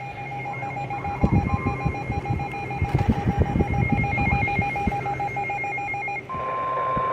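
Rapid electronic alert beeping, fast even pulses at two high pitches, with irregular low thuds beneath it. About six seconds in it gives way to a single steady alert tone near 1 kHz, the kind that sounds ahead of a new emergency weather warning broadcast.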